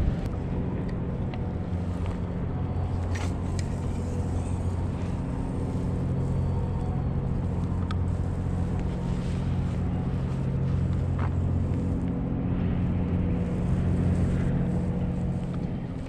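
A steady low engine drone with a few faint clicks and knocks over it.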